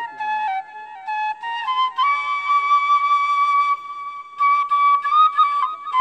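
Background music: a solo flute melody moving in small steps. About two seconds in it holds one long note, then moves on in quick ornamented notes.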